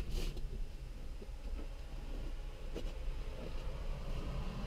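A few faint knocks and rustles as stretched furs are set down in the cargo area of an SUV, heard from inside the cab over a low steady rumble.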